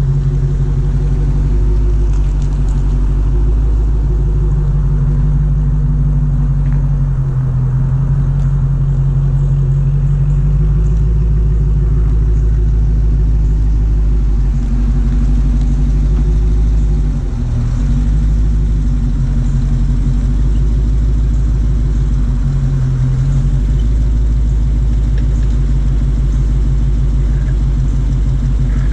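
2020 Dodge Challenger 392's 6.4-litre HEMI V8 idling steadily through its factory exhaust, a deep, even rumble with a brief dip a little past halfway.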